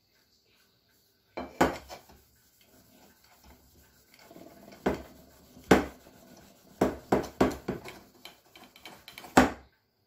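Hollow aluminium vacuum-cleaner motor housing knocking and clattering as it is turned in the hands, with a cloth rubbing polish over the metal between the knocks. It starts about a second and a half in; the loudest knocks come near the middle and just before the end.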